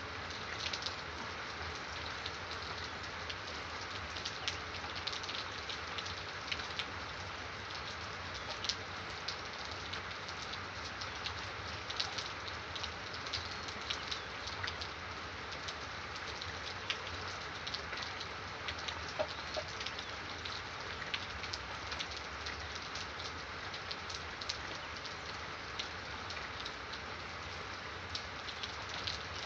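Steady rain falling, with many sharp individual drops landing throughout, and birds calling now and then.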